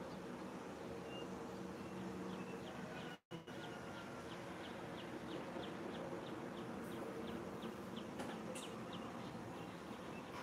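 Outdoor ambience: a faint steady low hum, with a quick run of short high chirps, about three a second, from a couple of seconds in until near the end. The sound drops out for an instant a few seconds in.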